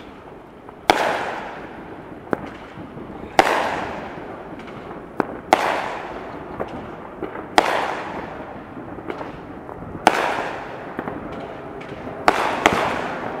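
Aerial fireworks bursting overhead: sharp bangs about every two seconds, each trailing off in an echo, with fainter pops between them. Two bangs come close together near the end.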